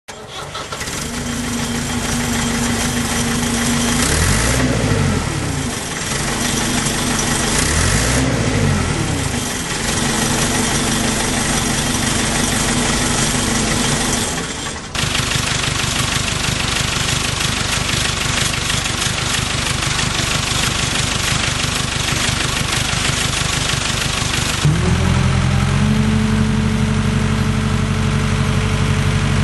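JCB 1400B backhoe's Perkins four-cylinder diesel engine running, revved up and back down twice in the first ten seconds. The sound changes abruptly about halfway through, then settles into a lower, even engine note near the end.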